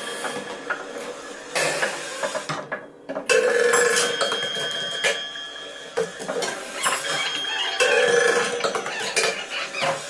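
Marbles clattering and rattling through a homemade sound circuit of tin cans, tubes and metal parts, mixed with electronic tones and buzzes that the marbles set off. The tones switch on and off in short blocks, with a brief quieter moment a little under three seconds in.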